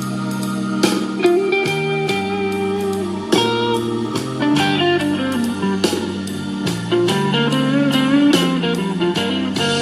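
Blues-style music with slide guitar and a steady drum beat, played back through a small portable Bluetooth speaker for a sound test.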